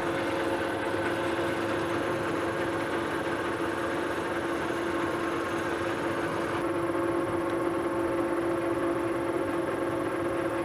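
Metal lathe running steadily with a steady whine, spinning a 2-inch bar of 1018 hot-rolled steel while the tool faces its end. About two-thirds of the way through the higher hiss drops away.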